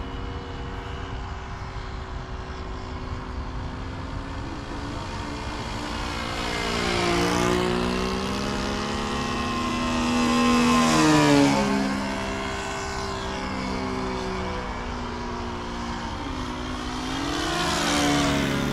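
Gasoline engine of a radio-controlled model airplane in flight: a steady drone, then three fly-bys about a third of the way in, around the middle and near the end, each louder and falling in pitch as the plane passes.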